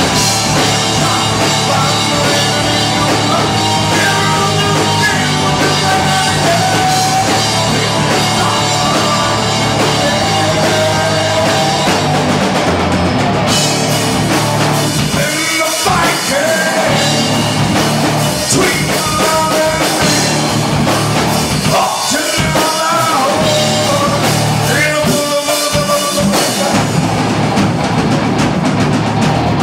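Live rock band playing loud, heavy rock or metal: electric guitars and a drum kit, with singing in parts.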